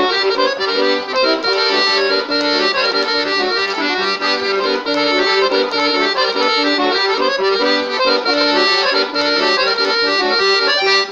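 Piano accordion playing a traditional-style tune, melody and accompaniment together; the playing stops abruptly at the very end.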